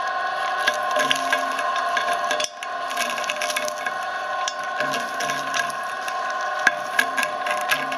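Filamaker shredder running with a steady whine from its drive while its rotating cutter blades crunch and crack PEZ candy and its packaging, with many sharp snaps. The sound drops out briefly about two and a half seconds in.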